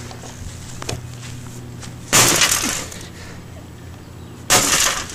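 Sledgehammer blows smashing an old desktop computer: two loud crashing impacts about two and a half seconds apart, each followed by breaking and rattling debris.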